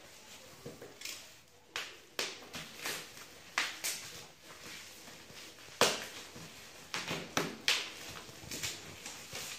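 Plastic wrapping on a cardboard parcel crinkling and rustling as fingers pick and tug at it, in short irregular crackles.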